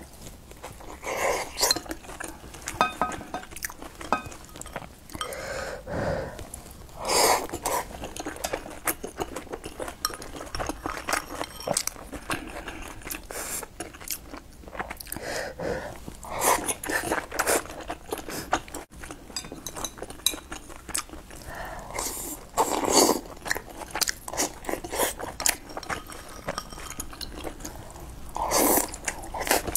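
Close-miked eating sounds: a person biting into and chewing soft steamed buns, with many small mouth clicks and several louder mouthfuls spread through.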